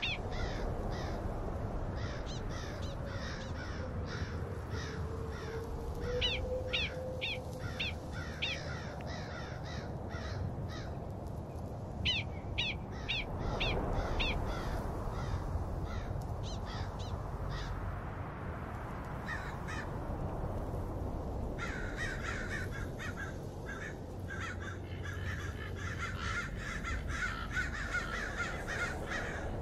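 Bouts of short, sharp animal calls, each sliding down in pitch, several a second, come in runs through the first half. In the last third a denser, steadier chattering takes over, all over a low outdoor rumble.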